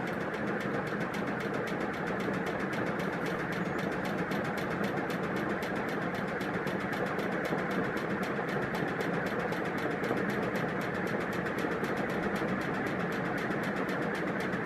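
TAT industrial ceiling fan, made in 1987, running steadily on test: an even motor hum and whir with a fast, regular ticking rhythm.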